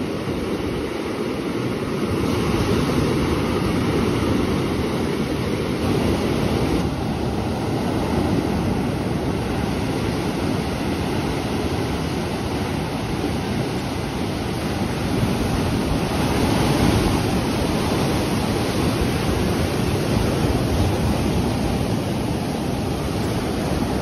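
Surf of low sea waves breaking and washing up a flat sandy beach: a continuous rushing wash that swells gently in loudness as each wave comes in.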